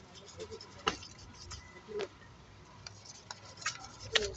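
A small hand tool scrubbing embedded brake dust off an alloy wheel: light scratching strokes and three sharp clicks as it knocks against the metal, the last just after four seconds among a quick run of scratches.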